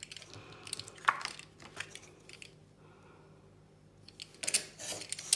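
Snap-off craft knife cutting through cardstock along a steel ruler: a few light clicks and scrapes, then a louder scratchy rasp of the blade through the card near the end.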